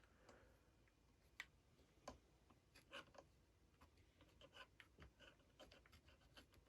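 Near silence with faint, scattered small clicks and taps of hands working on a small model, the most distinct about one, two and three seconds in.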